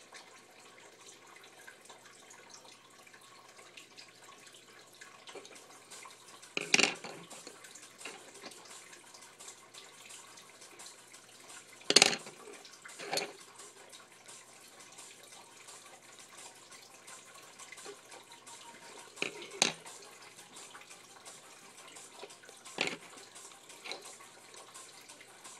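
Coloured pencils and a small paper puppet handled on a wooden tabletop: faint rubbing with a few sharp clacks as pencils are put down and picked up, the loudest about twelve seconds in and a quick pair about twenty seconds in.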